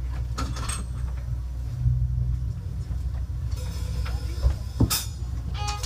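Steady low hum of live-band amplifiers on stage between songs, with a few clicks and knocks, and a couple of electric guitar notes sounding near the end.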